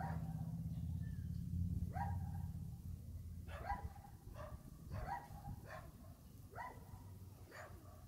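Dogs barking repeatedly, single short barks about a second apart. A low hum sits under the first few seconds and then fades.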